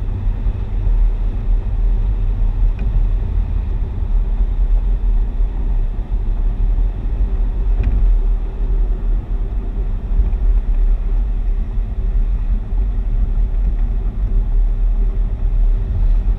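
Car driving at steady speed, heard from inside the cabin: a constant low drone of engine and road noise, with a couple of faint ticks.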